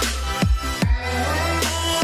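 Electronic dance music with heavy kick drums over a deep, sustained bass and synth tones.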